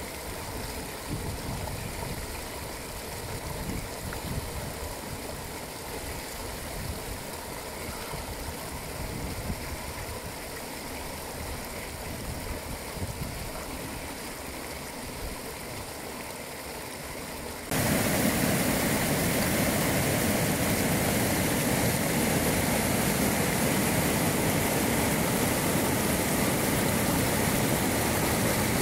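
Running water of a small mountain brook with irregular splashing as water is scooped onto a face. About two-thirds of the way through it cuts suddenly to the much louder, steady rush of a fast white-water river.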